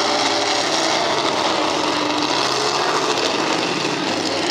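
Mega truck's engine running hard as it drives across the dirt course, its pitch wavering over a steady wash of noise.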